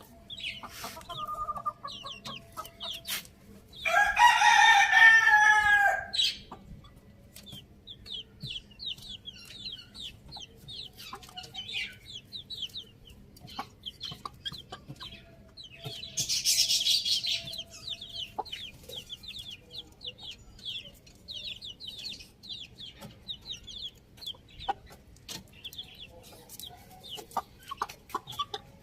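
A rooster crows once, loudly, about four seconds in. Hens make short clucking calls throughout, and a harsh noisy burst comes about halfway through.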